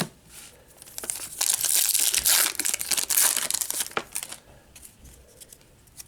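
Wrapper of a baseball card pack being torn open and crinkled: a crackling rustle lasting about three seconds, starting about a second in.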